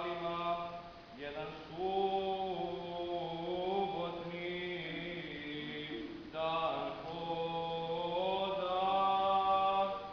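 Orthodox liturgical chant in a low male voice, long notes held and slowly sliding between pitches, in drawn-out phrases with short breaks about a second in and again about six seconds in.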